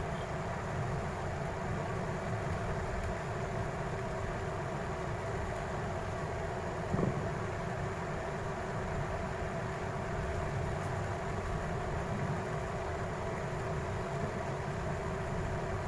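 Steady mechanical hum with a constant low drone, and a single short click about seven seconds in.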